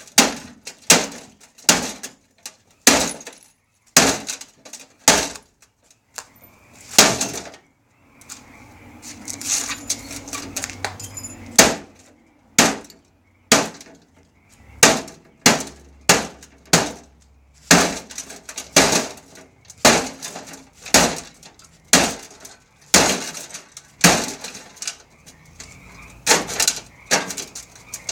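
Hammer repeatedly striking a microwave oven, sharp blows at roughly one a second, with a short stretch of rattling between blows about a third of the way in.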